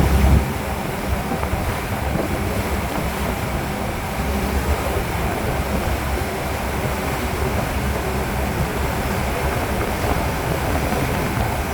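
Riverboat under way: its engine runs with a steady low rumble beneath rushing water and wind on the microphone, with a brief low bump right at the start.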